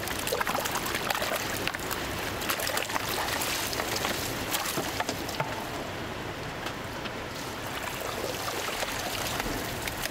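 Water running and splashing as live flatfish are transferred between the tanks of live-fish trucks, with a dense patter of small splashes throughout.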